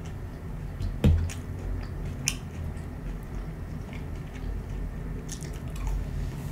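Close-miked eating of a ketchup-dipped chicken nugget: biting and chewing with scattered wet mouth clicks, and a thump about a second in.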